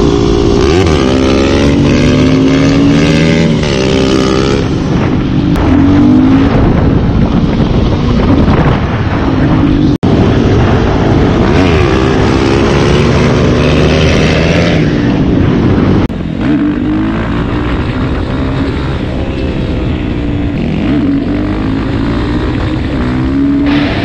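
Motorcycle engine running hard, its pitch climbing and dropping several times as the revs change, with abrupt cuts about ten and sixteen seconds in.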